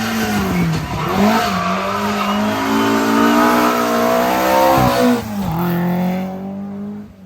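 Rally car engine at hard throttle, its note repeatedly climbing and dropping through gear changes over a rushing noise. The sound dips about five seconds in, picks up again, then fades near the end.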